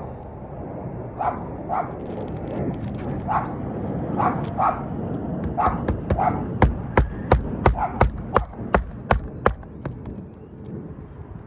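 A dog barking repeatedly, then about ten sharp knocks in quick succession, roughly three a second, in the second half.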